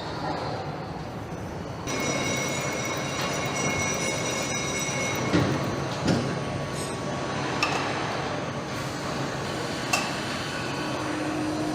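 Car assembly-line machinery running: steady mechanical noise with thin high whines, and several sharp metal clanks.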